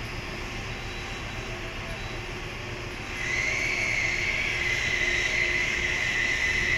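Steady mechanical drone, joined about three seconds in by a louder, steady high-pitched whine.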